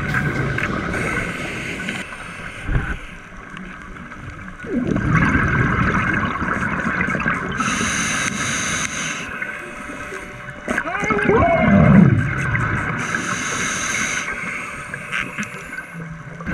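Scuba diver breathing through a regulator underwater: a long gurgle of exhaled bubbles followed by a short hissing inhale, twice.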